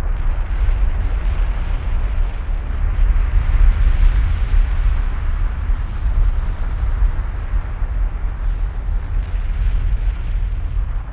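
Kilauea lava fountain giving a deep, continuous rumbling roar with a hiss over it, swelling about four seconds in and easing slightly near the end.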